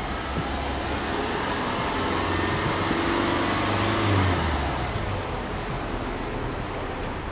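Subaru Legacy B4 2.5i's EJ25 flat-four engine heard at the tailpipe. It idles, then is revved gently while standing: the pitch climbs for about two seconds, peaks about four seconds in and falls back to idle.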